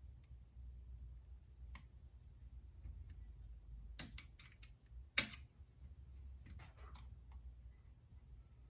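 Small, scattered plastic clicks and scrapes as the cooling fan's electrical connector on a car navigation unit's circuit board is pried loose by hand, the sharpest click about five seconds in. A low steady hum sits underneath.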